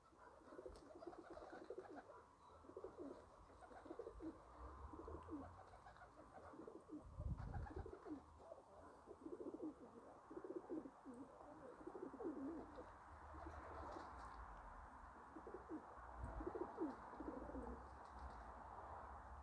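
Domestic pigeons cooing, faint and repeated over and over. There are a couple of low thumps, one about a third of the way in and one near the end.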